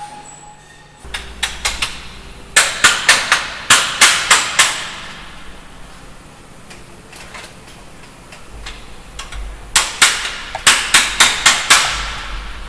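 Hammer blows on aircraft metal. A few light taps come first, then two runs of about eight sharp, ringing strikes at roughly four a second: one about two and a half seconds in, the other about ten seconds in.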